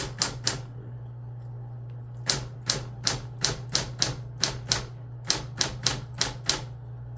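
Manual typewriter keys struck one at a time as the alphabet is typed, each typebar snapping against the platen. Three quick strikes, a pause of about two seconds, then a steady run of about three strikes a second.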